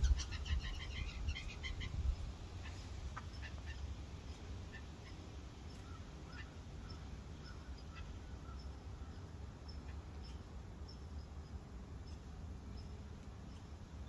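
Blue jay giving a quick run of harsh calls in the first two seconds, followed by fainter, scattered short chirps, over a steady low background rumble.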